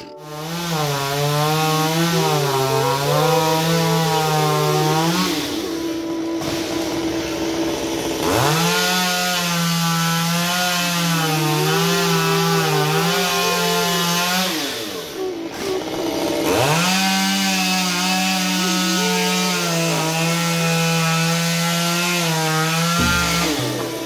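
Two-stroke chainsaw running at high revs while cutting into a tree's wood, its pitch wavering as the chain bites. It runs in three long stretches with short gaps between them.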